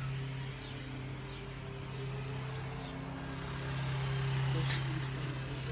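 A steady low mechanical hum, with a brief high click about three-quarters of the way through.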